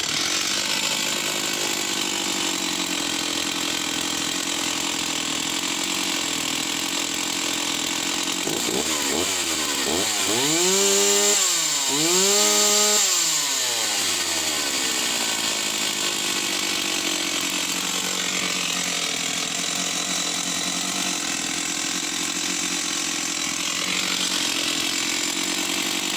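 Stihl 038 AV 61cc two-stroke chainsaw running at high revs. Its pitch falls and climbs twice around ten to fourteen seconds in.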